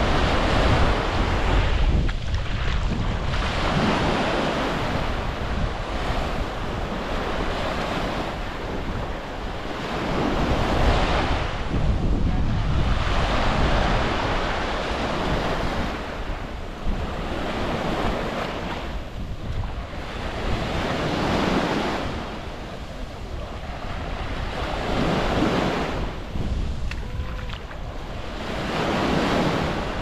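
Sea waves breaking and washing up on a sandy beach, the surf swelling and falling every few seconds. Wind buffets the microphone with a steady low rumble underneath.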